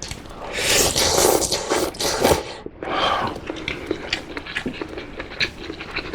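A person slurping spicy ramen loudly for about two seconds, then a shorter slurp, followed by chewing with small wet clicks.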